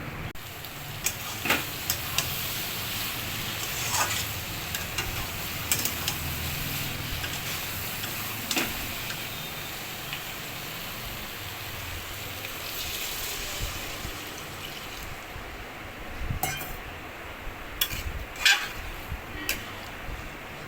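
Soya bean curry sizzling in a pan while it is stirred with a spoon, with sharp clinks of the spoon against the pan every few seconds. The sizzle eases off near the end.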